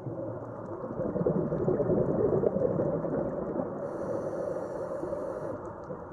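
Scuba diver breathing through a regulator underwater: a long burble of exhaled bubbles, loudest from about one to three seconds in, then a hissing inhale about four seconds in.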